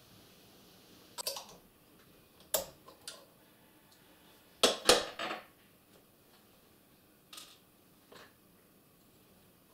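Clinks and taps of a screwdriver and small metal sewing-machine parts being handled and set down on a tabletop. Scattered single strokes, with the loudest a quick double knock about five seconds in.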